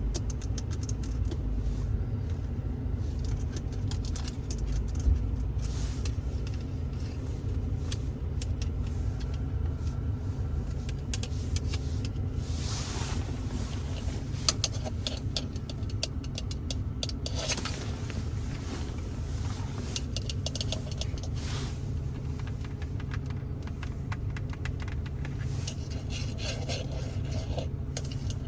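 ASMR tapping and scratching with fingers on the interior surfaces of a Ford Focus: many quick taps and clicks, with a few longer scrapes about halfway through and again later. A steady low rumble runs underneath.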